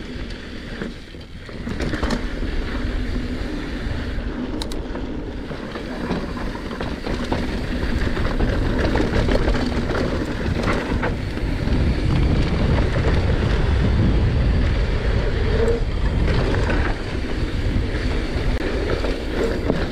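Mountain bike being ridden on a dirt trail: tyres rumbling over dirt and gravel with the bike rattling, and wind buffeting the microphone. It grows louder a couple of seconds in as speed picks up, with a few sharp clicks and knocks along the way.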